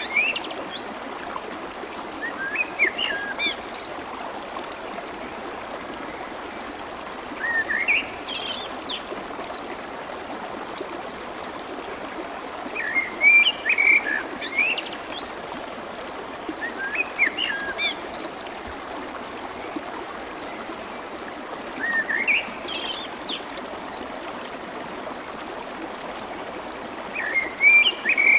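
Clear water babbling and trickling steadily, with a songbird singing short chirping phrases of quick rising and falling notes about every four to five seconds.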